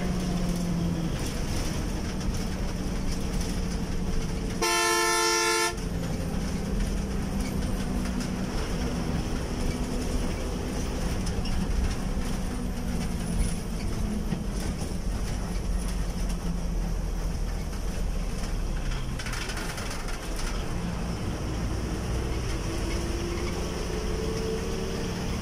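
A bus's engine and road noise drone steadily from inside the moving coach. About five seconds in, a loud multi-tone horn blasts once for about a second. Near the end the engine note climbs as the bus speeds up.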